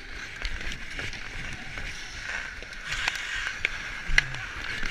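Ice hockey skates scraping and carving on the ice, with sharp clacks of sticks and puck several times in the second half, the loudest about four seconds in.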